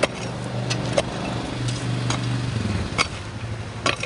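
A pickaxe chopping into a gravel surface: about five sharp strikes, irregularly spaced, over the steady low hum of an engine running.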